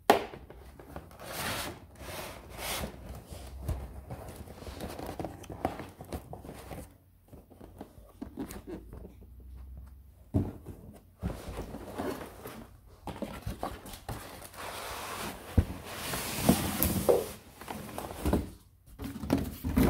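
Cardboard packaging being handled and tipped: irregular rustling, scraping and knocks, quieter for a few seconds near the middle and busier with sharper knocks near the end.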